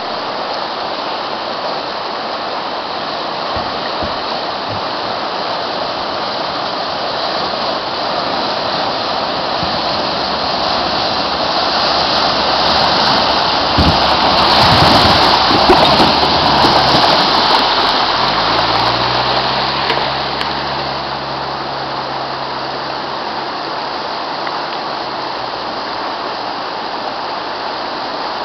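Fast mountain river rushing steadily over rocks. In the middle a Mitsubishi Pajero diesel SUV wades through the ford close by, and the splash and surge of its bow wave make the loudest stretch. Then its engine note rises, holds for several seconds and fades back under the water noise.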